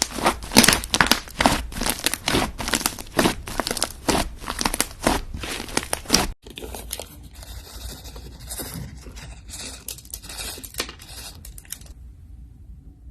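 Slime being worked by hand, giving a run of crinkly, crackling squelches about two to three a second. A little past the middle it cuts to softer crackling, which dies away near the end.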